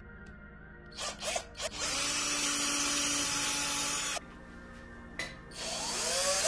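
Cordless drill boring a small hole into the edge of a bamboo shelf board. After a couple of short trigger pulses, it runs steadily for about two and a half seconds and stops abruptly, then spins up again near the end.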